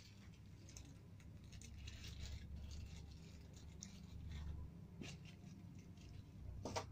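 Faint scratching and rustling of hands handling a homemade foam-board and pipe rubber-band toy gun, with a couple of small clicks, the sharpest near the end.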